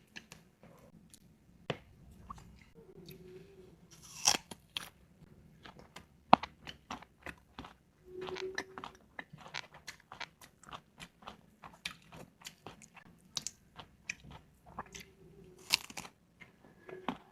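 Close-up crunchy biting and chewing of mango slices eaten with bagoong shrimp paste. There is a louder crunching bite about four seconds in and another near the end, with a few short hums in between.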